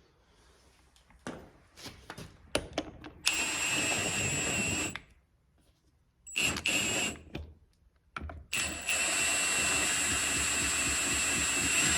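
Power drill running in three bursts, driving bolts: a short run about three seconds in, a brief one around six seconds, and a longer run of about four seconds near the end, with a few clicks and knocks before the first run.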